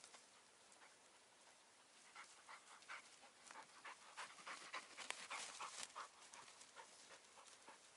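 A German shorthaired pointer panting, faint, in a quick run of breaths. The breaths grow louder about two seconds in and fade out a little after six seconds.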